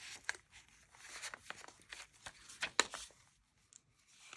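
Paper cards and journal pages rustling and sliding as they are handled, with several sharper crinkles, the loudest a little past halfway.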